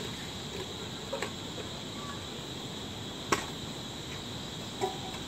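Steady high-pitched chorus of trilling crickets, with a single sharp knock a little past halfway.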